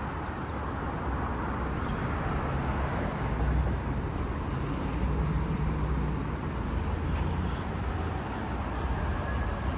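City street traffic: passing motor vehicles, with a low engine rumble that swells a few seconds in and eases off, and a few brief high-pitched squeaks.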